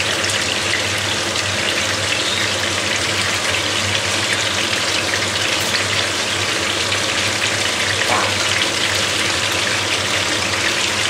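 Rabbit pieces frying in oil in a pan, a steady sizzle.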